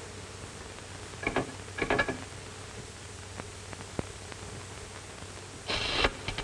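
Candlestick telephone's hook being worked on a dead line: two short clattering rattles about a second and a half in, then a louder clatter near the end running into rapid clicking, about ten clicks a second, with no answer from the line.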